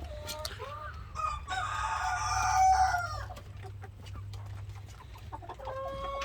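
Roosters clucking, with one rooster crowing about a second and a half in, a crow lasting about two seconds that is the loudest sound here.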